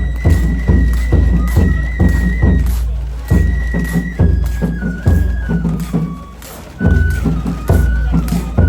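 Japanese festival hayashi: a shinobue bamboo flute playing a high melody of held notes that steps downward, over a steady beat of taiko drum strikes, about three a second. The drums pause briefly about two-thirds of the way through.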